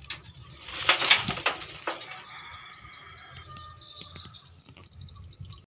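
Dry banana leaves and brush rustling and crackling as someone pushes through them, loudest about a second in, followed by fainter scattered clicks.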